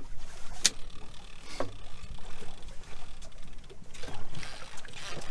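Steady noise of a boat on open water, with a sharp click a little under a second in and a softer knock shortly after.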